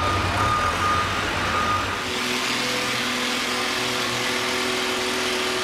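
Oliver tractor engine running at the end of its pull, with a high beep sounding in broken stretches over it. About two seconds in, this gives way to a Farmall H tractor engine idling steadily.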